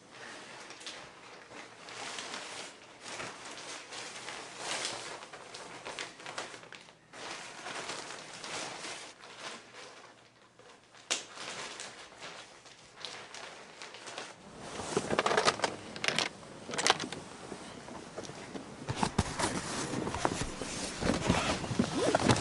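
Clothes and a garment bag rustling as they are handled and packed on a bed. About fourteen seconds in, a low rumble comes in under louder rustling and a few sharp knocks as the garment bag is handled in a car.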